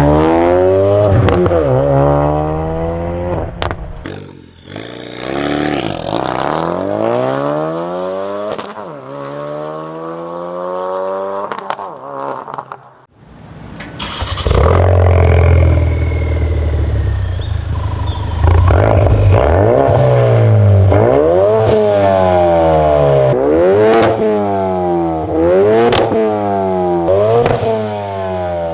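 Ford Focus RS's turbocharged 2.3-litre four-cylinder revved repeatedly through an Agency Power aftermarket exhaust, its pitch climbing and falling with each rev. The sound drops away briefly twice, and the revs come in quick succession in the second half.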